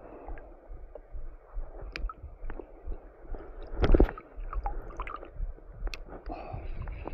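Shallow water gurgling and squishing, with scattered clicks and handling noise. About four seconds in there is a loud rubbing thump as a sleeve brushes against the camera.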